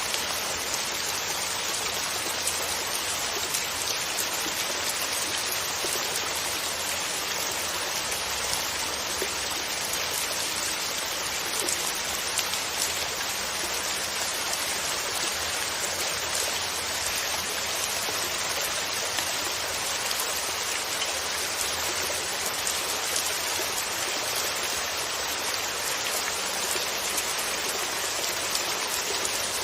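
Steady rainfall: an even hiss of countless drops with small ticks of single drops scattered through it, unchanging throughout.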